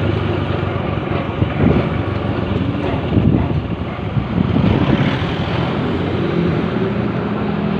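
A motor vehicle's engine running steadily, with road and wind noise, as the vehicle travels along a street.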